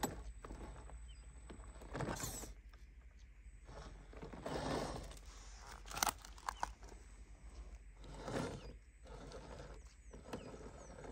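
Knobby tyres of a small RC rock crawler crunching and scraping over loose shale, with stones clattering, in several separate bursts and a sharp knock about six seconds in.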